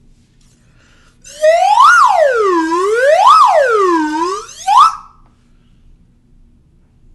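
Slide whistle sliding up and down in two smooth swoops, then a brief upward slide that stops abruptly; it starts about a second in.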